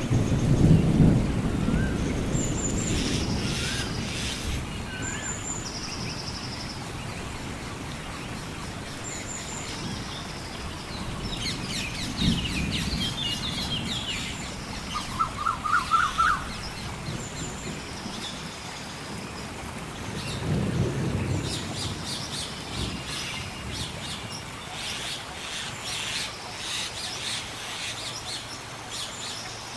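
Rain falling steadily in a forest while thunder rumbles: once at the start, and again about twelve and about twenty-one seconds in. Birds call over it with short high repeated notes and a quick run of rising notes around the middle. Dense high chirping builds near the end.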